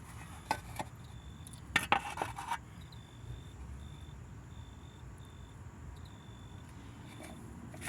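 Insect chirping in short, evenly spaced high pulses over low background noise, with a few clicks and a brief clatter of handling noise about two seconds in.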